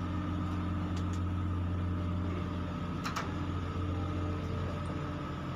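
Steady, deep hum of an idling engine, even throughout, with a few light clicks about a second in and again about three seconds in.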